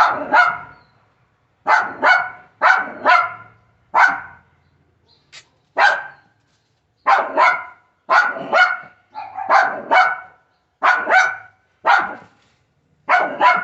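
Small Shih Tzu dog barking repeatedly, in quick pairs and triplets of sharp barks with short pauses between.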